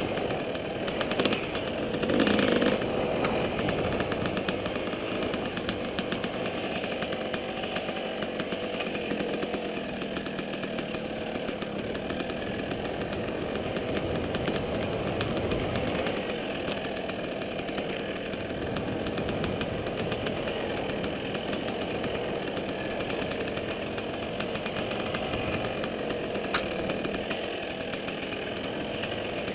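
Dirt bike engine running under way on a rocky trail, with a louder burst of throttle about two seconds in.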